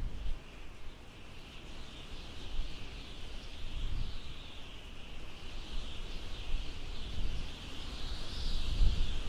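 A steady, high-pitched hissing drone that swells and fades, over a low rumble.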